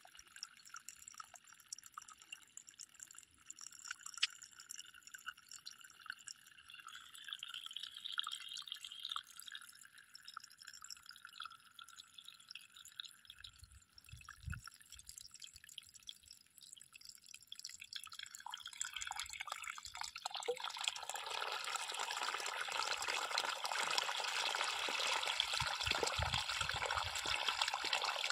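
Borewell water from a plastic irrigation pipe outlet dripping and trickling into a muddy channel, then swelling into a strong, steady gush about two-thirds in. The flow is intermittent, stopping and starting, which the farmer puts down to his two borewells giving far less water than before.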